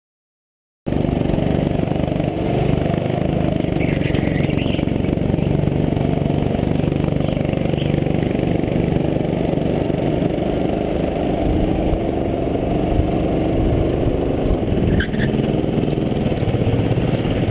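Go-kart engine running under load, heard close from a camera on the kart, its pitch shifting slightly with the throttle. The sound cuts in abruptly just under a second in.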